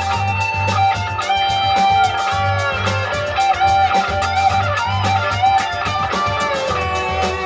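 A recorded band mix plays back: an electric guitar with bending, sustained notes over a bass line and a steady drum beat.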